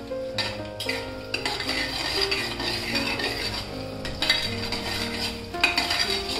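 Steel spatula scraping and clinking against a stainless-steel kadhai while chopped ginger, garlic and green chillies fry in oil, with a steady sizzle under repeated stirring strokes.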